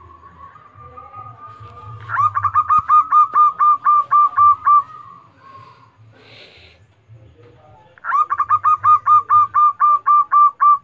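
Zebra dove (perkutut) singing: a soft drawn-out opening note, then a fast run of about a dozen loud, evenly spaced coos at roughly four to five a second. The whole phrase is sung twice.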